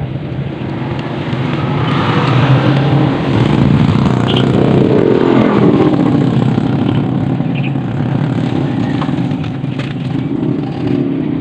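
A motor engine running close by, growing louder over the first few seconds and dropping in pitch around the middle as it passes.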